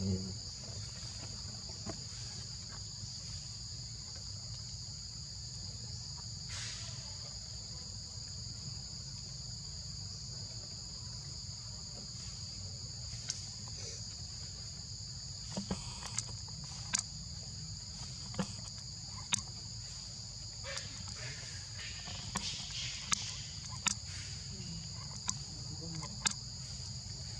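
Steady high-pitched drone of forest insects, in two even bands that never let up, over a low background rumble. From about halfway through, a scattering of short, light clicks and ticks rises above it.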